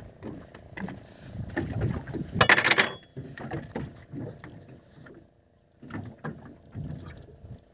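Knocks and handling noises from a freshly caught kingfish being gripped and worked on in a fibreglass boat. A short, loud rattling clatter comes about two and a half seconds in.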